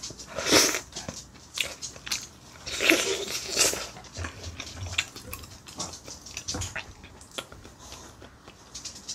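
Close-miked eating sounds: meat bitten and sucked off a pork back-bone, then chewed, with wet mouth clicks. The loudest bites and sucks come about half a second in and again about three seconds in.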